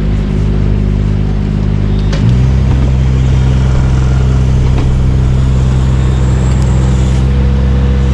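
An engine running steadily. About two seconds in, its note drops and it runs a little louder, then holds at that new steady speed.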